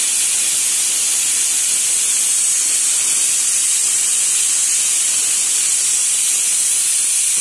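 Pressure cooker venting steam with a loud, steady hiss while its whistle weight is held up by hand, releasing the pressure after cooking so the lid can be opened.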